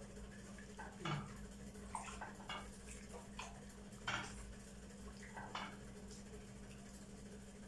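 Silicone spatula stirring milk and boiled wheat grains in a pot, giving a few light knocks and scrapes against the pot at irregular intervals. A steady low hum runs underneath.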